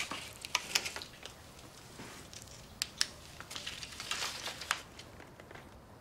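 Quiet rustling and crinkling with a few sharp light clicks as paper and small objects are handled.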